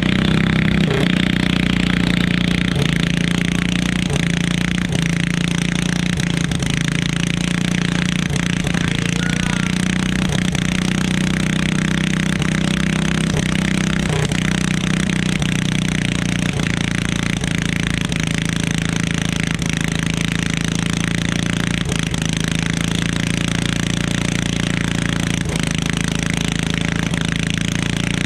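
Stock garden tractor's small engine running steadily at an unchanging pitch while pulling a weighted sled down the track, with scattered light knocks.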